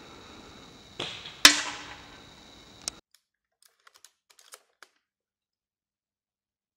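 An airsoft BB striking a small metal target plate with one sharp clack that rings briefly, about half a second after a softer rush of sound. After about three seconds the sound drops away to a few faint clicks.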